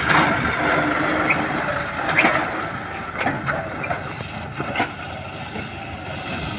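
John Deere 5065E tractor's diesel engine running under load as it pulls a disc plough through dry, brushy soil, with scattered sharp cracks and clatters from the discs. The sound grows fainter as the tractor moves away.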